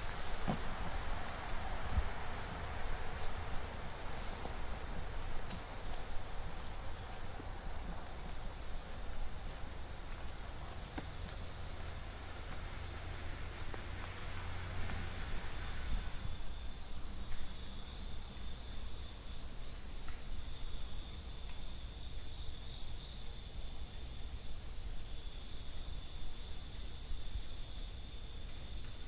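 A chorus of bell crickets (suzumushi) singing steadily in one high, shrill band. Under it runs a low rumble that drops away about halfway through, and there is a single knock about two seconds in.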